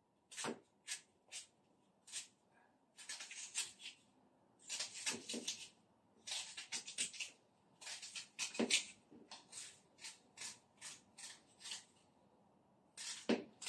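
Kitchen knife slicing through a raw dry onion held in the hand, a run of short crisp cuts, some single and some in quick clusters, with brief pauses between.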